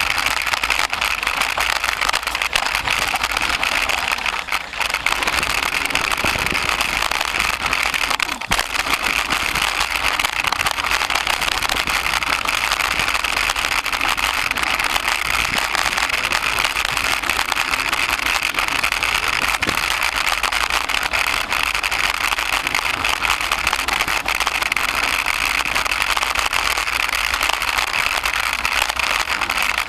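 Mountain bike clattering over a bumpy dirt trail, heard through a camera mounted on its handlebars: a steady rattle of the bike and mount with tyre noise on the dirt. It dips briefly about four and a half seconds in.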